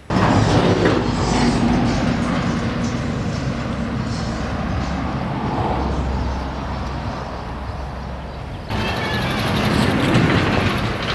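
A vehicle engine running with outdoor noise, steady and without a clear rhythm. The sound changes abruptly and grows louder and brighter about nine seconds in.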